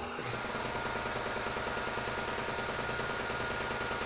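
Electric piston air compressor switched on and starting up, then running with a fast, even pulsing and a thin steady whine; it is pumping up its tank from low pressure.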